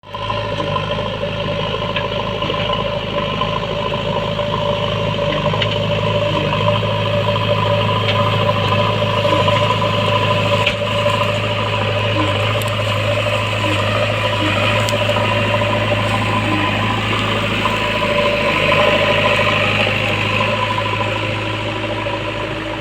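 JCB backhoe loader's diesel engine running steadily, with a few light clicks over it.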